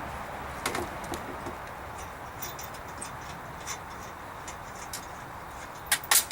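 Scattered light clicks and ticks of a wrench and socket on the bumper's 18 mm mounting nuts, over a steady background hiss, with two sharper clicks near the end.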